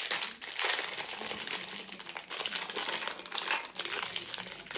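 Toy blind-bag packaging being crinkled and rustled by hands, in uneven bursts while a small figure is worked out of it.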